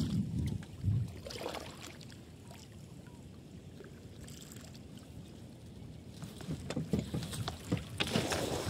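A cast net thrown from a wooden canoe: a quiet stretch of gently moving water, then near the end a quick run of small clicks and splashes as the net flies out and its lead sinkers hit the water.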